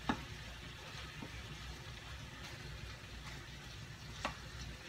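Shrimp sizzling faintly in butter and olive oil in a frying pan, with a couple of sharp knocks of a wooden spoon against the pan, one just after the start and one near the end.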